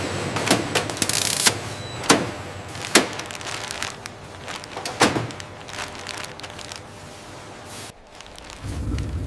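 A handful of sharp knocks and clacks, one at a time, over a faint steady low hum, with a short hiss early on.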